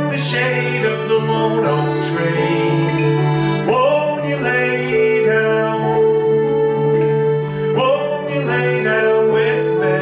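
Piano accordion, banjo and acoustic guitar playing a folk song together: the accordion holds sustained chords under the plucked banjo and strummed guitar.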